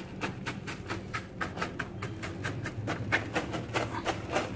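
Pond gravel clicking and scraping under a hand pressing it flat in shallow water, a rapid irregular run of small stone-on-stone clicks with some water sloshing.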